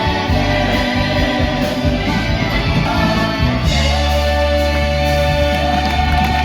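Music with a singing voice over a steady low bass, with a long held note in the second half.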